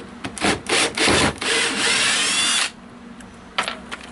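Power drill boring into wood: some short handling clatter, then the drill runs for about a second and a half with a wavering whine and stops abruptly, followed by a couple of light clicks.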